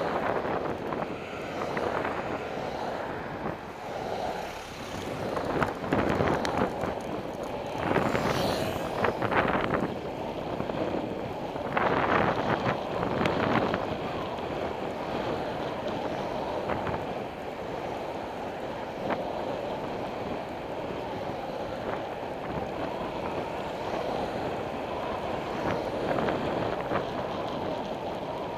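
Wind rushing over a camera microphone on a moving bicycle, with a steady haze of road noise, swelling louder a few times, most of all around eight and twelve seconds in.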